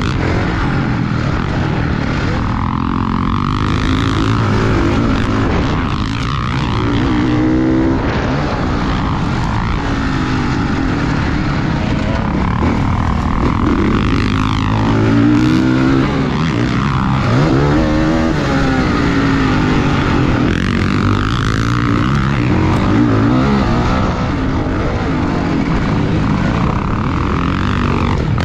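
Motocross bike engine running hard, revving up and down over and over as the throttle is worked, with wind buffeting underneath.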